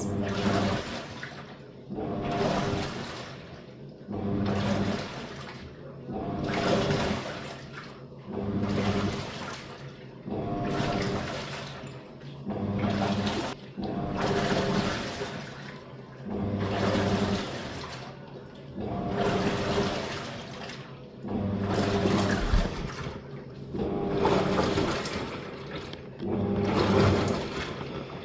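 Living & Co 5.5 kg top-load washing machine agitating: the wash plate's motor hums in pulses about every two seconds, turning the wash one way and then the other, with water swishing in the tub.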